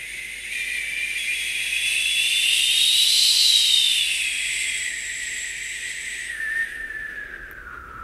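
A whistling tone over a hiss. It glides up to a peak about three seconds in, then sinks lower and fades toward the end.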